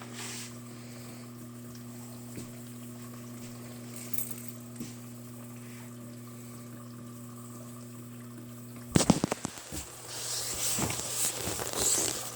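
Dishwasher running its wash cycle: a steady motor hum, then about nine seconds in a quick run of sharp knocks and rattles, followed by water swishing and spraying inside the tub.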